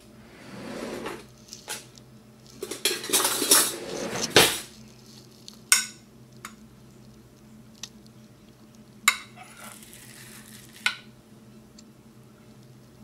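Metal spoon scraping and digging through thick tahini in a glass dish, loudest in a dense run of scraping before the middle. Later come three sharp clinks of metal on glass.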